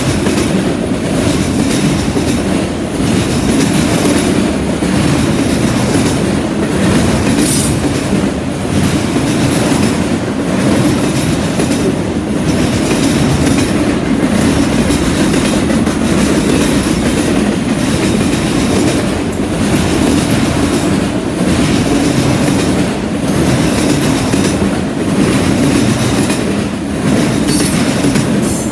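Freight train of autorack cars rolling past close by: a loud, steady rumble and clatter of steel wheels on rail, pulsing about every second or two as the cars go by.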